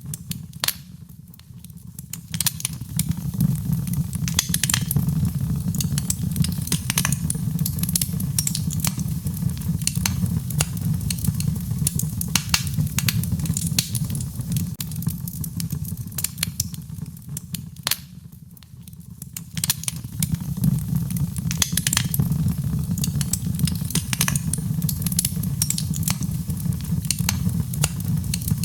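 Wood fire in a fireplace crackling, with frequent sharp irregular pops over a steady low rumble. It goes briefly quieter twice, about a second in and again near the middle.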